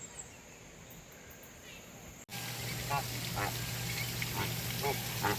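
A handful of short, raspy animal calls, about five spread over the last three seconds, over a steady low hum and hiss that begin abruptly a little over two seconds in. The first two seconds hold only a faint steady high tone.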